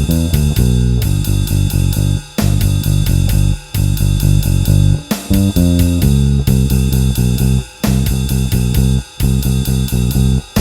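Short-scale Fender Bronco electric bass with a G+B Toaster neck pickup and flatwound strings, played uncompressed: a bass line of separate picked notes with short breaks between phrases. A drum kit plays along with steady cymbal strokes.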